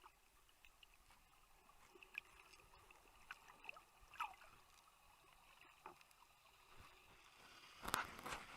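Faint water sounds: scattered small clicks and gurgles, with a louder rush of water noise near the end.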